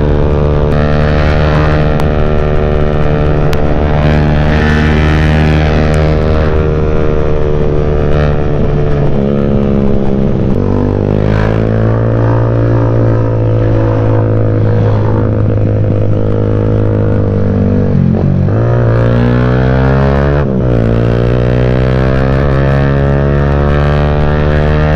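Motorcycle engine with a CJ Ipoh aftermarket exhaust, heard while riding: a loud, steady engine note that drops lower about ten seconds in, then twice dips sharply and climbs again in the second half.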